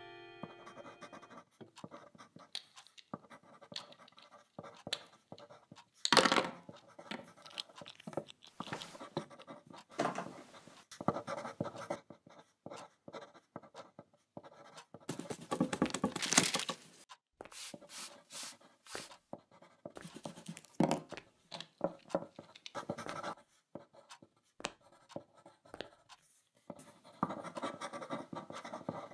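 Pencils scratching on paper in short, irregular spells of writing, with louder stretches about six seconds in and again around sixteen seconds.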